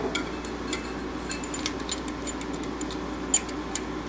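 Small metallic clicks and taps of a valve spring tool and valve parts being worked on a Ford flathead engine's valve springs, with one sharper click about three seconds in, over a steady low hum.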